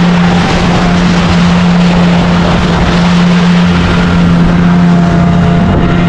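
Speedboat's motor running steadily at speed, with one steady tone, over rushing water and spray along the hull.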